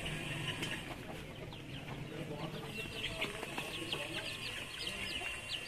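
Farmyard poultry calling: many short, high peeps repeating quickly, with a few lower clucking calls early on.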